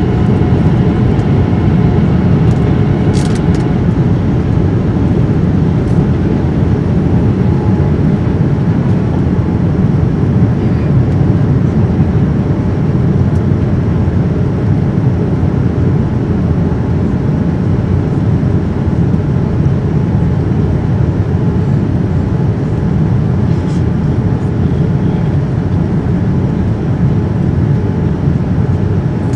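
Steady cabin noise of a Boeing 787-9 in flight, heard from a window seat over the wing: a deep, even rush of airflow and its Rolls-Royce Trent 1000 engines, with faint steady engine tones above it. A faint click about three seconds in.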